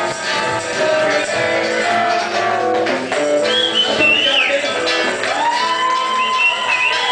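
Live band music: acoustic guitar strumming with singing, with a note held for nearly two seconds near the end.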